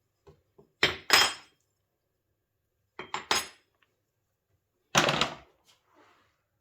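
Small metal hardware being handled and set down on a workbench: three short clusters of clinks and knocks about two seconds apart, the last trailing off briefly.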